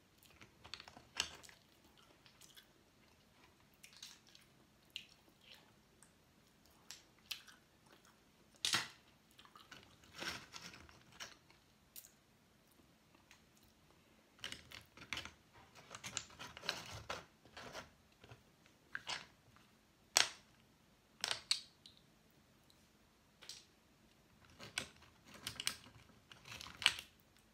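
Close-mic eating of boiled seafood: chewing with short, sharp crunches and clicks at irregular intervals.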